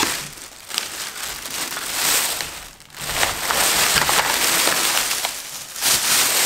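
Thin plastic shopping bag rustling and crinkling as it is shaken out, with plastic lure blister packs and soft-bait bags clattering and sliding onto a countertop; a short lull a little before halfway.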